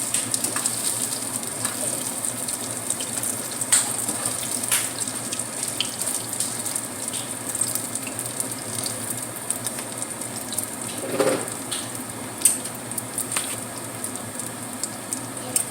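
Tofu frying in hot oil in a pan: a steady sizzle with scattered pops and crackles.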